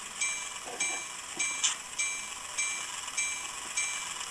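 Locomotive bell from a Digitrax SDN144K1E sound decoder, played through the small speaker of an N scale Kato U30C model. It rings steadily at just under two strikes a second, each ring fading before the next.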